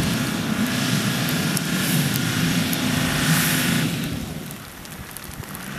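Toyota Land Cruiser 80's engine held at steady high revs under load as the truck churns through deep mud, with a rushing hiss over it. About four seconds in, the engine note and the hiss fall away.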